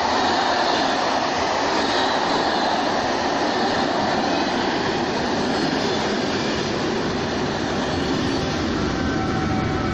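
SNCF Corail passenger coaches running past close by at speed, a steady loud noise of wheels on the rails. An electric locomotive passes near the end.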